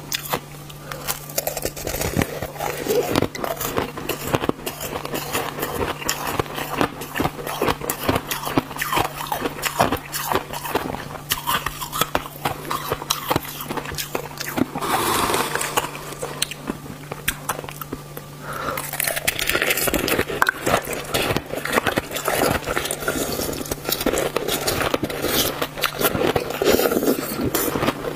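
Close-miked biting and chewing of a block of frozen crushed ice: a continuous run of crisp crunching and crackling, over a steady low hum.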